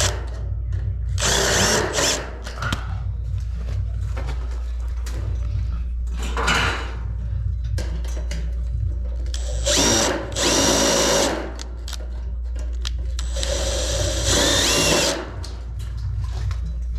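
Power screw gun driving fine-thread drywall screws through a steel stud top track into a fire-coated concrete plank ceiling, in four short bursts; the last two run longer, about a second and a half each.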